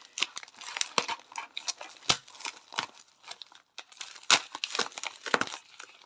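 Bubble-wrap packaging crinkling and crackling as it is unwrapped by hand, in irregular crackles with a brief pause a little past halfway.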